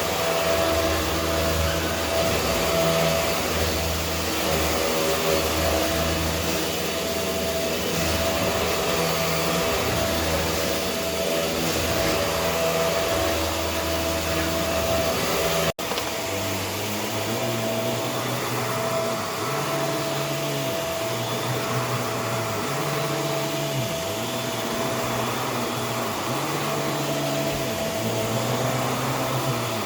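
Vacuum cleaner running with a steady whine while being pushed back and forth over a surface. An abrupt cut comes about halfway through, after which the forward and back strokes swell and fade in an even rhythm about every two seconds.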